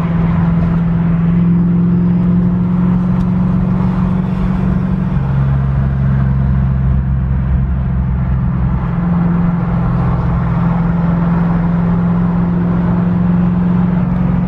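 1992 Ford Mustang GT 5.0 V8, fitted with a BBK off-road H-pipe and MagnaFlow Competition cat-back exhaust, cruising at about 2,000 rpm, heard from the driver's seat. The exhaust drone is steady, drops in pitch about five seconds in as the revs fall, and rises again about four seconds later.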